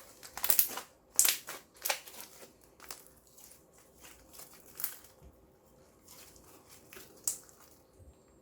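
Clear slime with eyeshadow mixed in, squeezed and worked by hand, giving sticky crackles and pops: a quick run of them in the first two seconds, then single pops a few seconds apart.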